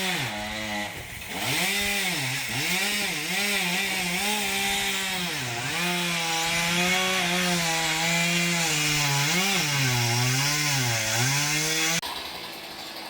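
Chainsaw running under load, its engine pitch repeatedly rising and sagging as it cuts into wood. Near the end the sound cuts off suddenly to a quieter background.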